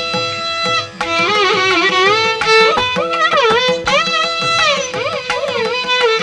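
Instrumental music: a melody holds one note for about a second, then slides and ornaments between notes over a lower accompaniment with light percussive strokes.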